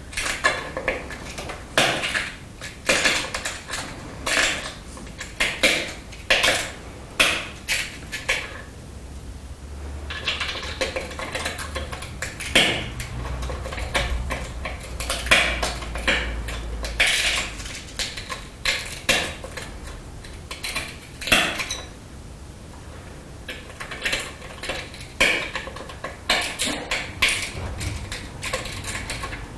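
Pressure flaking of a glass arrowhead with a copper-tipped pressure tool on a small wooden anvil: a string of sharp clicks and small glassy snaps as flakes come off the edge, in irregular clusters with short pauses between them.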